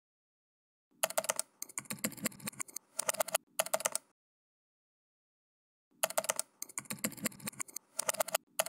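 Computer keyboard typing sound effect: two runs of rapid key clicks, each about three seconds long, the first starting about a second in and the second after a two-second gap of dead silence.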